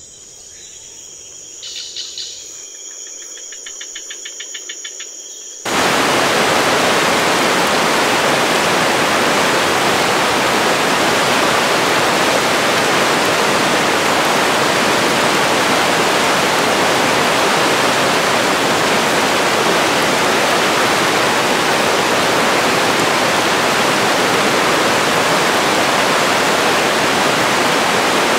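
Insects calling at dusk, steady high trills with a rapid pulsing call over them, then after about six seconds an abrupt change to the loud, even rush of a stream flowing over rocks.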